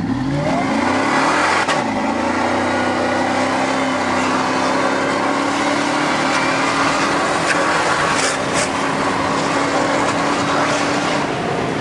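A 600-plus-horsepower Ford SVT Lightning pickup's V8 under hard acceleration, heard from inside the cab. The revs climb fast, there is a quick upshift about two seconds in, then a long pull with the pitch slowly rising, and the engine note drops away near the end.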